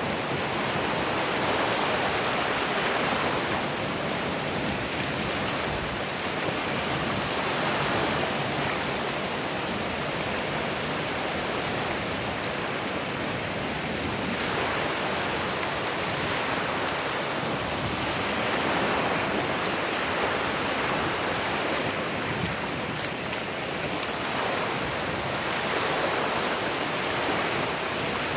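Ocean surf washing up the beach: a steady rush of waves that swells and eases every few seconds.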